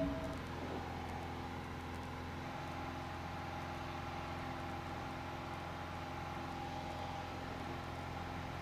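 Piper PA-28 Warrior II's four-cylinder Lycoming engine and propeller running steadily in flight, an even drone with no change in pitch.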